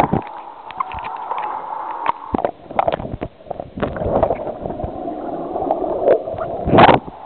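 Muffled water gurgling and rushing, picked up by a digital camera's own microphone while it is underwater in a swimming pool among bubbles. Scattered knocks run through it, and a brief loud burst comes near the end.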